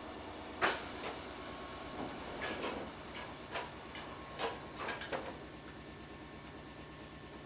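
Inside an ex-Keikyu 1000 railcar standing at a station: a sharp bang a little over half a second in, followed by a string of knocks and clatters over a steady low hum, typical of the car's single-leaf sliding doors working.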